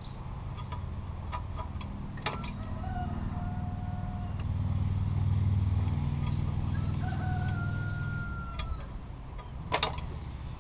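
A rooster crowing twice, each crow a long drawn-out call, the second slightly rising, over a low rumble that swells and fades in the middle. Sharp knocks come about two seconds in, and a louder one comes near the end.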